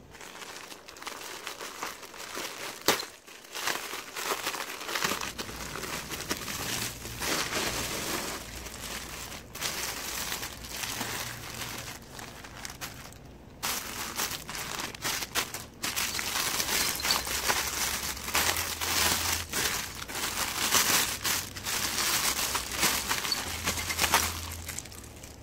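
Plastic packaging crinkling and rustling as hands open a plastic courier mailer and handle clear plastic bags and wrap, in irregular bursts with a sharp snap about three seconds in.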